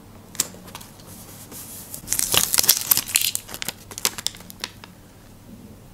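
Paper stickers being handled and peeled: a dense stretch of crinkling and rustling from about two to three and a half seconds in, with scattered sharp paper clicks before and after.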